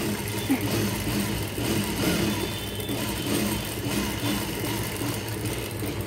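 Industrial sewing machine's motor humming steadily while the machine is idle between seams.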